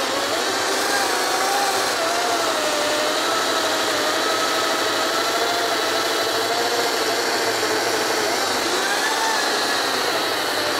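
Ryobi 40-volt brushless cordless chainsaw cutting through a thick log, the chain tearing wood over a steady electric motor whine that wavers in pitch as the load changes.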